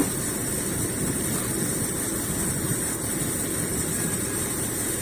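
Fishing boat's engine running steadily while under way.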